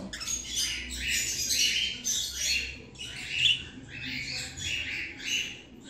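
Female budgerigar chattering: a steady run of short, scratchy chirps, about two to three a second.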